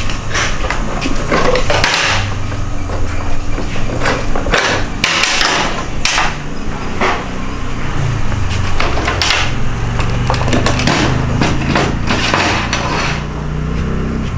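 Irregular knocks and taps of workshop hand-tool work on the motorcycle, a dozen or more strikes spaced unevenly, over a low steady hum.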